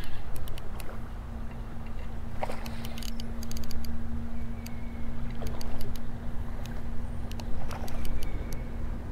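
Rumbling handling noise from an arm and flannel sleeve brushing against the microphone, with scattered sharp clicks in a few clusters. A faint steady low hum runs underneath from about half a second in.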